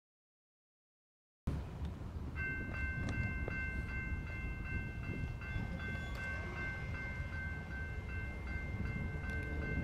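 Dead silence for about the first second and a half, then the low rumble of a distant switcher locomotive. From about two and a half seconds in, a bell rings steadily over it.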